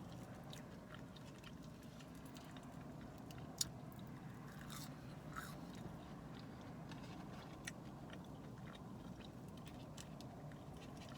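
Faint chewing and biting of fast food, with a few soft clicks over a low steady hum.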